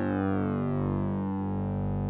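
Synthesized sync-and-ring-modulated electronic tone from the Orange Vocoder plug-in: a steady drone of many stacked tones. Its upper overtones sweep down and then back up, and there is a brief dip about every second and a half.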